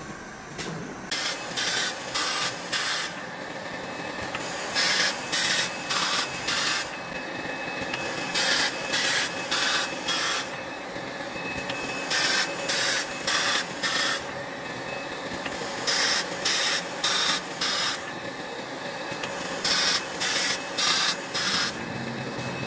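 Laser welding head on a prismatic battery module line welding the cell terminal poles. Short hissing bursts come in runs of four or five, one run every three to four seconds, over a steady machine hum.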